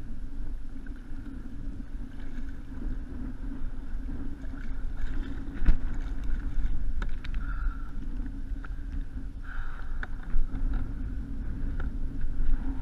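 Wind rumbling on the microphone over water lapping and splashing against a kayak hull, with several sharp clicks and knocks, the loudest a little over halfway through, as a fishing rod and a wire umbrella rig are handled at the side of the kayak.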